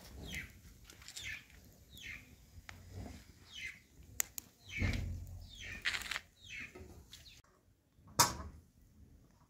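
Birds giving short calls that fall in pitch, repeated about once a second. A dull thump comes about halfway and a sharp knock near the end.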